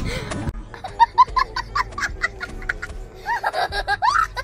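A young child laughing hard in a quick run of short, even bursts, with higher, rising laughs near the end.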